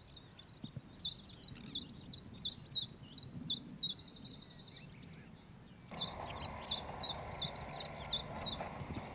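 Common chiffchaff singing its song of repeated 'chiff-chaff' notes, about three a second, in two phrases. The second phrase starts about six seconds in.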